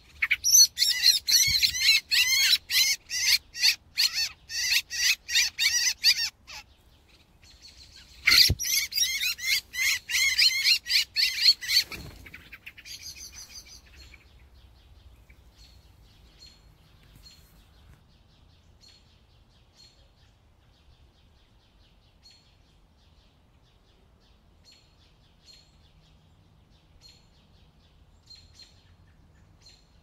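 Common blackbirds held in the hand giving loud, rapid alarm chatter in two bouts, one of about six seconds and one of about four, followed later by faint regular ticks about once a second.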